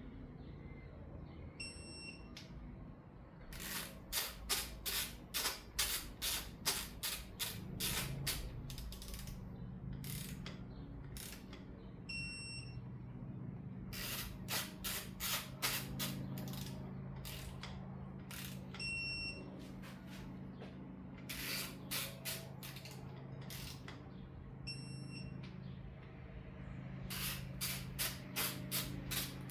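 Torque wrench ratcheting in runs of quick, even clicks as the 10 mm main cap side bolts of an LS block are run down to 18 ft-lb. A short electronic beep sounds four times between the runs, over a steady low hum.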